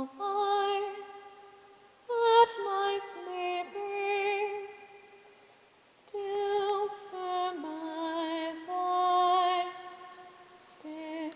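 A woman singing a slow melody with vibrato on held notes, in two phrases with a short break about six seconds in.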